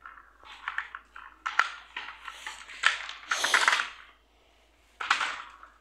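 Plastic toy truck rattling and clattering as it is handled, in irregular bursts with a few sharp clicks.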